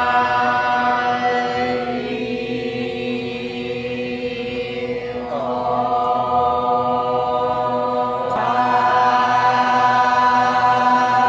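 A group of voices chanting together in long held notes, moving to new notes about every three seconds over a steady low drone.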